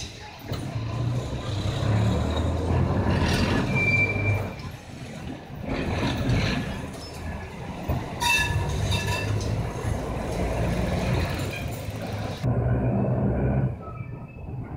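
Historic electric trams running on street rails: a steady low rumble of wheels and motors, with brief high wheel squeals about four seconds in and again a few seconds later.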